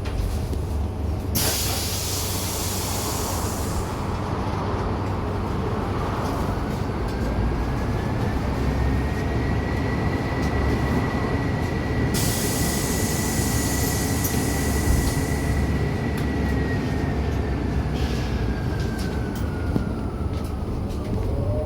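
MAZ-303E23 electric bus in motion, its traction motor whining: the whine rises in pitch as the bus speeds up, holds steady, then slides back down as it slows, over a steady low rumble of the ride. There are two spells of high hiss, one soon after the start and one in the middle.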